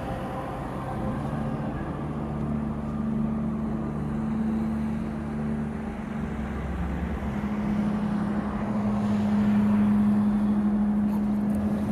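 Steady low mechanical hum with a held droning tone.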